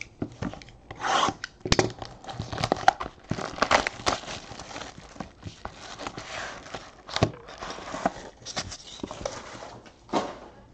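Trading cards and their packaging being handled: paper and plastic rubbing, sliding and crinkling, with some tearing and a few sharp clicks.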